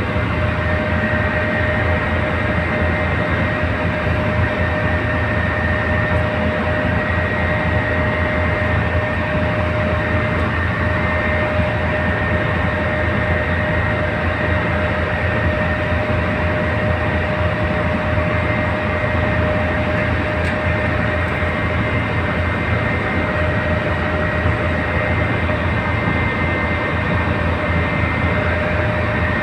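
Tugboat's diesel engine running steadily under load while towing a barge, a fast low throb with a steady whine over it.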